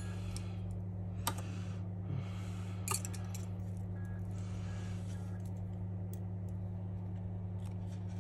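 A few light clicks of small parts and tools being handled inside an opened smartphone during repair, over a steady low hum.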